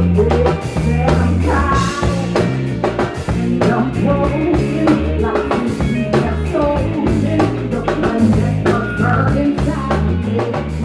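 Live band playing loudly: drum kit and a pulsing bass line drive a steady groove, with melodic lines over the top.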